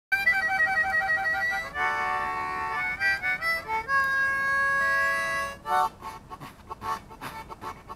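Harmonica playing a tune, starting abruptly out of silence: held chords and long notes, then softer, choppy short notes from about six seconds in.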